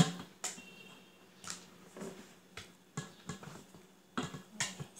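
Spatula tapping and scraping against a stainless steel pot and a glass Pyrex dish as sauce is scooped out and spread over a biscuit layer: a string of short sharp clicks and taps, the loudest right at the start.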